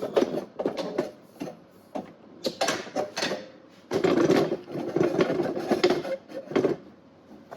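Hand ratchet clicking in quick runs of strokes while backing a fastener out, with loose clicks and knocks of metal tool handling between the runs; the longest, densest run comes about four seconds in.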